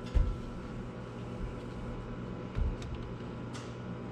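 Steady low background hum, with two dull knocks and a few light clicks.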